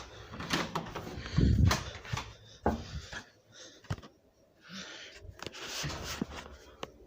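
Handling and movement noises in a small room: a cluster of heavy bumps about one and a half seconds in, a few sharp clicks, and short stretches of rustling.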